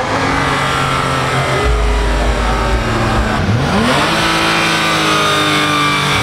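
Dodge Grand Caravan minivan's V6 engine revved hard and held at high revs, its pitch dropping and climbing back up about three and a half seconds in.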